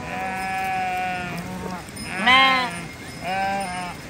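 Flock of sheep bleating: three calls in turn, a long drawn-out one at first, the loudest and most wavering one about two seconds in, and a shorter one near the end.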